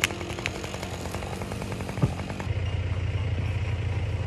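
Tractor engine running steadily, its low hum growing louder about two and a half seconds in. Two short sharp knocks, one at the start and one about two seconds in.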